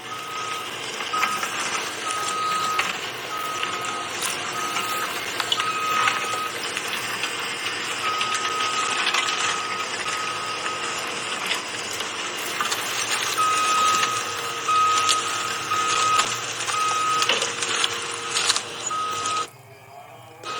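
Backup alarm on heavy earth-moving machinery beeping in a steady high tone, over a running diesel engine with occasional clanks. The sound drops away abruptly about a second before the end, then returns.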